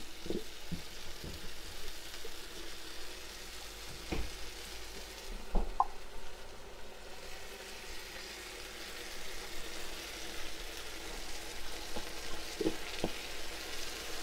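Red onions and garlic sizzling in olive oil in a frying pan as canned sardines in tomato sauce are tipped in and stirred with a spatula. Two sharp knocks, about four and five and a half seconds in, the second the loudest sound.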